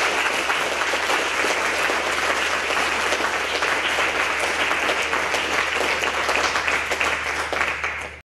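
Audience applauding steadily, cutting off suddenly near the end.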